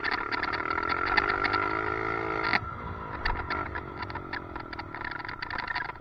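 Dirt bike engine on track, its pitch rising under throttle, dropping sharply about two and a half seconds in, then climbing again. Rapid clicking rattles run over it, from the loose helmet chin mount that causes the weird noise.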